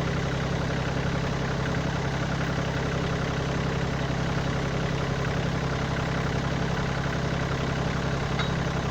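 Kioti tractor's diesel engine idling steadily. A short, light metallic click sounds near the end.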